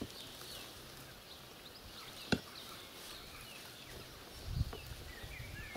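Quiet outdoor background with faint bird chirps, broken by one sharp tap a little over two seconds in and a brief low rustle about three-quarters of the way through.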